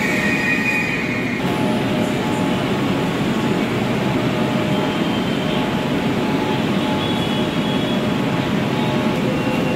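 Steady noise of a Kolkata Metro train, with a few faint high whining tones.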